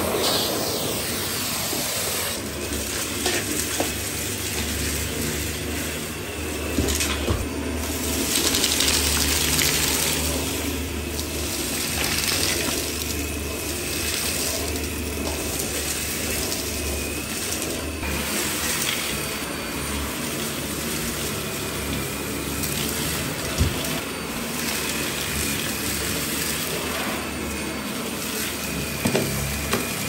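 A Dyson Ball Animal upright vacuum cleaner running steadily with a faint high whine, sucking dirt and wood chips up off a carpet.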